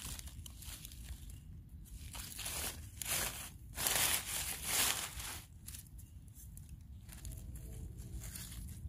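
Dry fallen leaves rustling and crunching as a gloved hand pushes through them, loudest in a few bursts in the middle.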